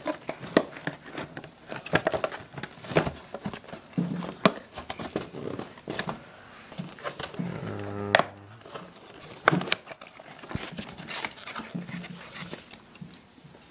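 A cardboard box and its packaging being handled and cut open: irregular taps, clicks and scrapes, with a brief low hum-like tone about eight seconds in.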